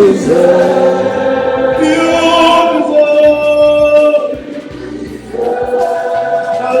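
Church congregation singing a gospel worship song together, voices holding long notes.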